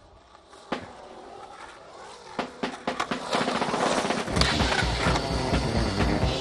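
Skateboard wheels rolling on a concrete bowl, with a sharp clack just under a second in and a run of clacks a couple of seconds later. Music with a heavy bass beat comes in about four seconds in and takes over.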